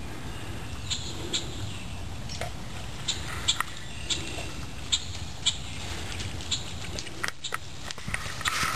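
Light water splashing in a pond: a scatter of short splashes and ticks, roughly one a second, over a steady outdoor background, from dogs swimming and playing.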